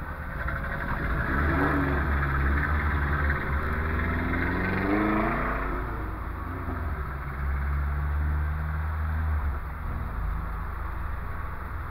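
Volvo 144S four-cylinder engine accelerating, heard from inside the cabin: the revs climb for a few seconds, drop as it shifts up about six seconds in, then climb again.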